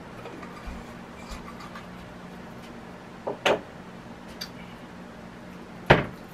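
Short, sharp clicks and knocks of kitchen items being handled: two close together about three and a half seconds in and a louder one near the end, over a steady low hum.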